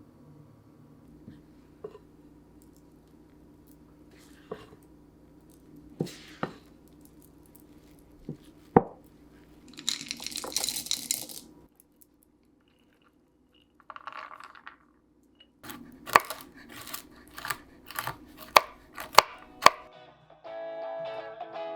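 Close handling sounds: scattered sharp clicks and knocks, a hiss-like rustle lasting about a second and a half about ten seconds in, and a quick run of clicks near the end. Guitar music comes in just before the end.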